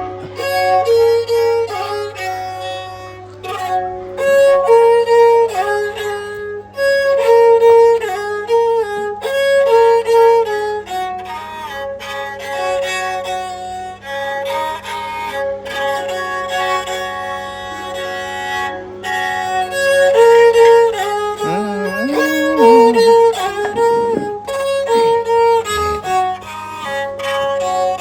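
Bodo serja, a bowed folk fiddle, played with the bow: a melody of short held notes stepping up and down, with a few sliding notes in a lower register after about twenty seconds.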